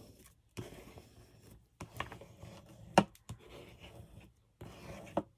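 Paper strip being rubbed and pressed flat by hand onto a book page: light scratchy rubbing, with a few short taps, the sharpest about three seconds in.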